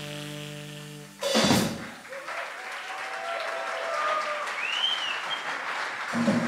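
A jazz quartet's last chord on saxophone, piano, upright bass and drums rings and fades, cut off by a final drum and cymbal hit about a second in. The audience then applauds.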